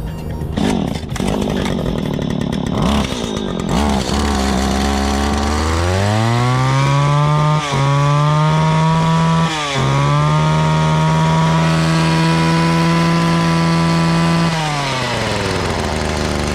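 Stihl FS 85 RX string trimmer's small two-stroke engine idling, then revved up to full throttle about six seconds in. It holds there with two brief dips, then drops back to idle near the end. The throttle, on a newly replaced cable, now opens all the way.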